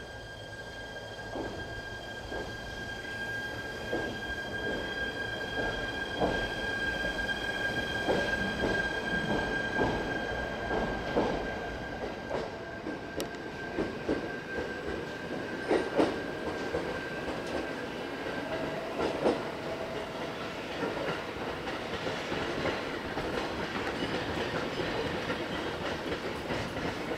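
Shinano Railway SR1-series electric train moving off along the tracks, its wheels clacking irregularly over rail joints and points. A steady high whine runs under the clacking and stops about two-thirds of the way through.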